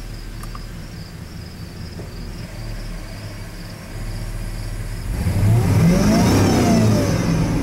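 6.0 L V8 truck engine idling steadily, then about five seconds in it revs sharply up and falls back down, as it does during a crankshaft position relearn.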